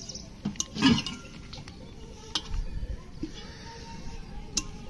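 Aluminium cooking pots clinking and knocking against each other as they are lifted and set down: a few sharp knocks, the loudest about a second in with a short ring.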